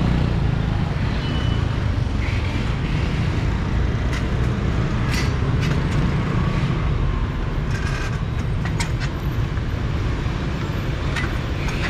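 Busy outdoor street-market background noise: a steady low rumble of traffic with scattered small clicks and clatter.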